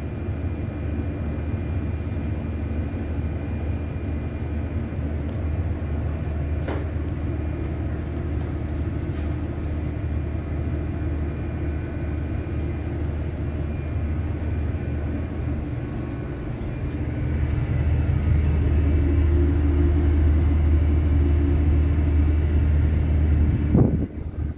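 River vessel's engines droning steadily, heard inside the wheelhouse as a low rumble. The drone grows louder for several seconds near the end and then breaks off abruptly.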